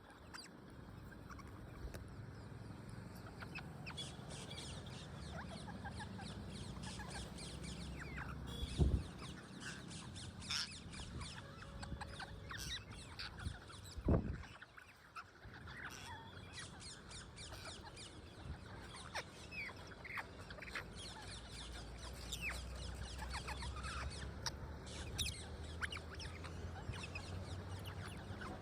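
A flock of parrots chirping and calling in many short, high notes while feeding on sesame seeds, over a steady low background rumble. Two loud thumps come about 9 and 14 seconds in.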